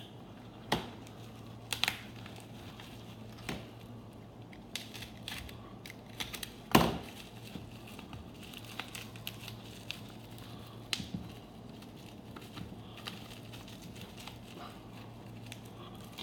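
Padded packaging being unwrapped by hand: crinkling and tearing of the wrapping, with scattered clicks and knocks, the loudest about seven seconds in. A faint low steady hum runs underneath.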